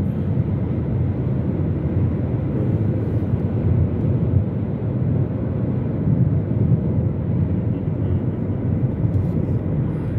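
Steady low rumble of a car driving along a road, heard from inside the cabin: tyre, road and wind noise with no changes.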